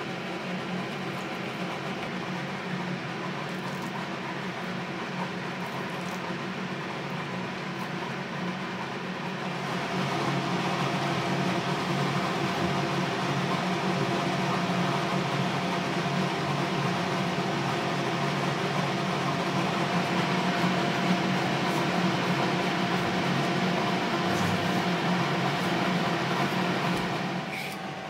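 A steady rumbling hum with a hiss over it and faint steady tones running through it. It grows louder about ten seconds in and falls away again near the end.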